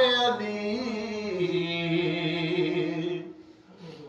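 A man's voice chanting a devotional Urdu salam without instruments, holding one long wavering note that fades out about three seconds in, leaving a brief lull.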